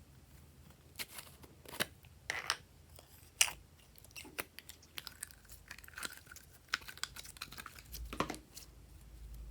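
Slime being worked by hand, making irregular sticky crackles and pops that start about a second in.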